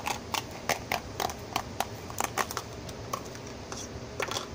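Clear plastic clamshell case of a laptop memory stick being handled and opened: an irregular run of sharp plastic clicks and crackles.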